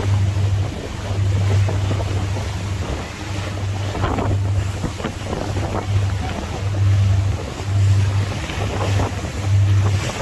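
Wind buffeting the microphone in uneven low gusts, over a steady rush of water and noise from a moving boat.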